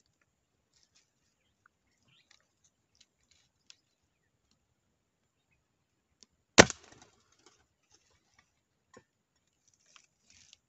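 A single shot from a Rossi Dione air rifle about two-thirds of the way through: one sharp crack with a short ringing tail. Faint scattered clicks come before and after it.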